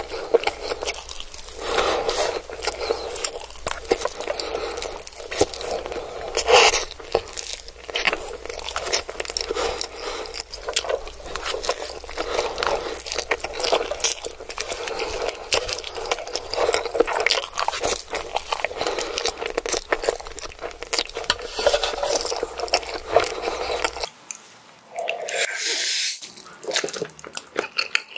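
Close-miked slurping and chewing of Indomie goreng instant fried noodles, with chopsticks scraping a metal sheet pan, a dense run of wet clicks and smacks. About four seconds before the end the sound changes to a quieter recording of another eater slurping noodles.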